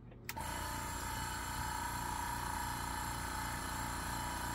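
Small tank-type airbrush compressor switched on with a click, then running steadily with a low hum and a held whine, very quiet for a compressor.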